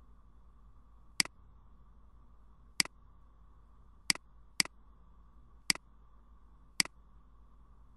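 Six sharp computer mouse clicks, spaced irregularly about a second apart, two of them in quick succession in the middle, over a faint steady hum.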